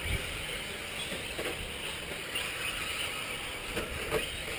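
Radio-controlled 4WD short-course race trucks running around the track, their small engines buzzing under an even, noisy background.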